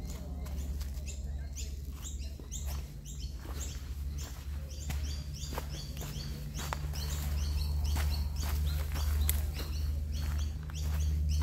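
Small birds chirping, a quick series of short high notes repeated a few times a second, over a steady low rumble, with footsteps on a dirt and rock bush track.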